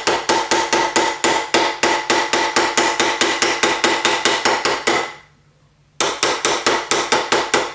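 Rapid, even blows of a white plastic-faced mallet on a reticulated silver cuff over a steel anticlastic stake, about seven strikes a second, each with a short metallic ring, hammering in the anticlastic curve. The hammering stops for under a second about two-thirds through, then resumes.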